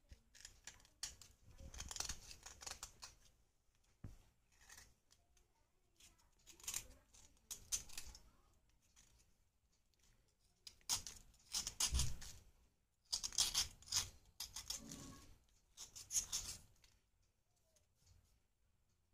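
A small blade scraping a clay bread bar in quick, raspy strokes. The strokes come in bursts of one to two seconds with short pauses between, and powdery shavings fall onto a plastic bag.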